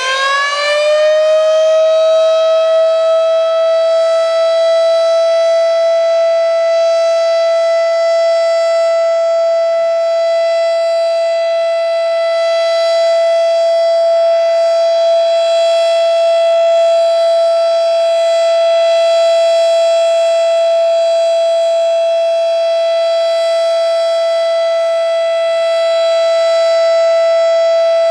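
Federal Signal Model 7 mechanical siren sounding a steady Alert, one of a test's one-minute alert signals. Its pitch is still rising at the start and levels off within about two seconds, then it holds one steady, loud, high tone.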